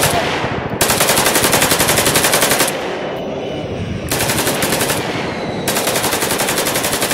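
Long bursts of rapid automatic gunfire, machine-gun style, one after another with short pauses between them. There are about four bursts, and each fades off in a short tail.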